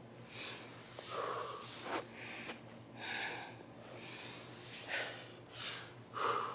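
A woman's nose and breath sounds: a series of short sniffs and snorts, roughly one every second.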